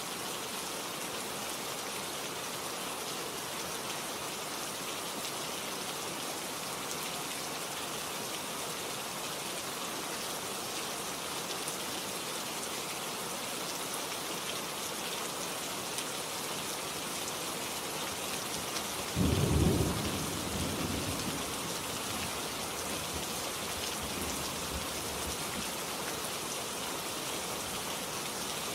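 Steady heavy rain falling, with one sudden thunderclap about two-thirds of the way through that rumbles away over a couple of seconds.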